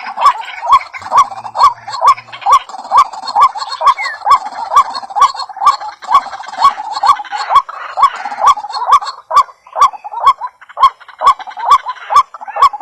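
A bird calling over and over, a fast, very even series of short hooked notes, about three a second, each with a sharp clicky edge.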